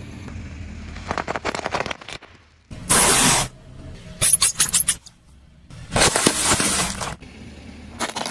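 A car tyre rolling over and crushing small objects: a run of clicks and cracks, then two loud crunching bursts with more cracking between them, and a short crackle near the end.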